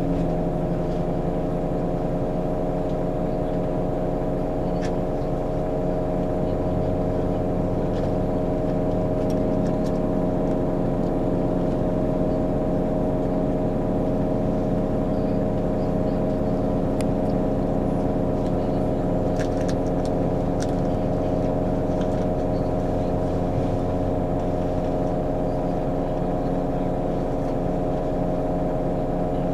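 Scania K410EB6 coach's diesel engine running steadily under way, a drone of several steady tones; the low note shifts slightly about seven seconds in.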